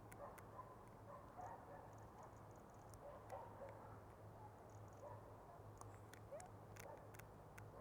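Near silence: faint, scattered calls of distant marsh birds over a low steady hum, with a few light clicks near the end.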